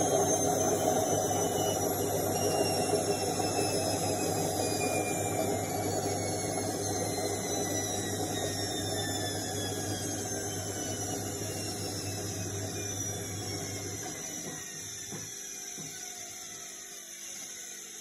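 Indesit front-loading washing machine spinning down at the end of its spin cycle: the motor's whine falls steadily in pitch and fades as the drum slows, and its low hum cuts out about three-quarters of the way through.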